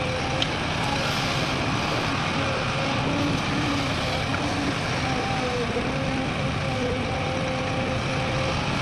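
Heavy diesel machinery running steadily, a continuous engine drone with a faint wavering hum.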